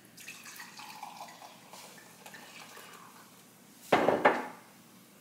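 Wine cocktail being poured from a glass bottle into a drinking glass, a soft steady pour lasting about three seconds. About four seconds in comes a loud clunk and clatter of glass set down on a granite counter.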